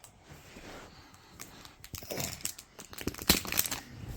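Wrapper of a Mash'ems toy capsule crinkling and tearing as it is unwrapped by hand, in irregular crackles that grow louder and denser in the second half.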